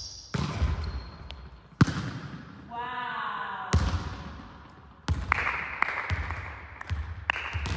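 Volleyball being struck and bouncing on a sports hall floor: about five sharp smacks a second or so apart, each ringing on in the hall's echo.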